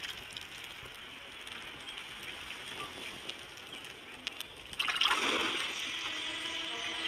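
Running water, a waterfall and stream, as an even hiss that grows louder about five seconds in.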